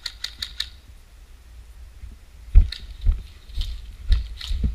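Footsteps of a player moving over rough ground, with heavy thuds about twice a second from about halfway in as the worn camera is jolted with each step. A quick run of sharp clicks comes right at the start.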